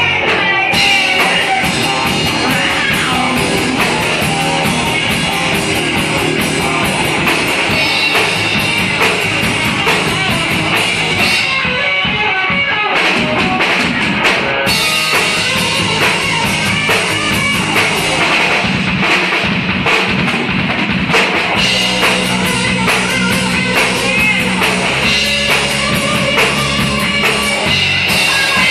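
Live rock band playing: electric guitar over a drum kit with a steady kick drum and cymbals.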